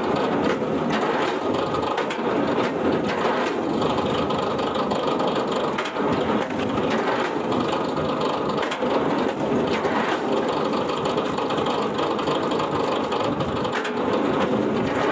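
Firewood-processing machinery running steadily, with scattered brief knocks as wood is worked.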